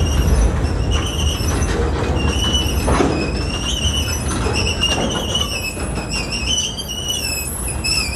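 Freight cars rolling slowly past on steel wheels, with a low rumble and high, wavering wheel-on-rail squeals that come and go. A single knock comes about three seconds in.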